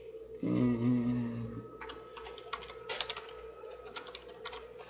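Typing on a computer keyboard: irregular clicking keystrokes from about two seconds in. A brief low hum sounds about half a second in, before the typing.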